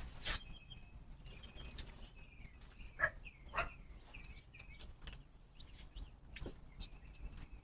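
Small birds chirping in short, often falling calls over a steady low hum from a doorbell camera's microphone, with a few sharp clicks. The loudest click is about three seconds in.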